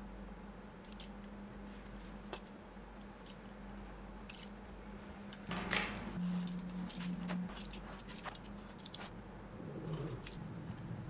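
Scattered light clicks and clinks of a steel ruler being laid and shifted on leather over a cutting mat, with a louder clatter a little past halfway as the ruler is set down. Near the end there is a brief scrape as a utility knife starts along the ruler. A steady low hum runs underneath.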